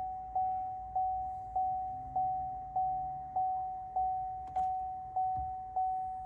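Cadillac Escalade's warning chime dinging over and over, a single tone repeating a little under twice a second, each ding fading before the next.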